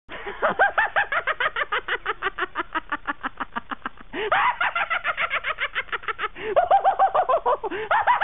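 A person's rapid cackling laugh: a long run of short, high-pitched hoots, about eight a second, broken twice, about four and six and a half seconds in, before picking up again. The laugh is so odd that it sounds like a clucking hen.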